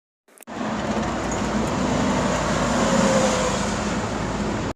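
Steady road traffic noise, starting suddenly about half a second in and cutting off abruptly.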